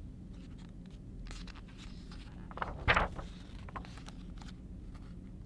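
A page of a large picture book being turned: soft paper rustling, then one louder swish of the page a little under three seconds in.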